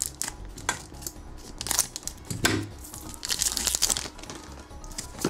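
Foil wrapper of a Pokémon trading-card booster pack being torn open and crinkled by hand, in irregular crackling bursts, the longest about three to four seconds in.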